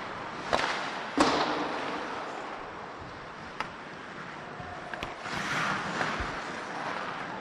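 Ice hockey play in a rink: sharp cracks of sticks on pucks and pucks striking the boards, the loudest about a second in and ringing briefly, then a few lighter knocks. A rising hiss of skates scraping the ice comes near the end.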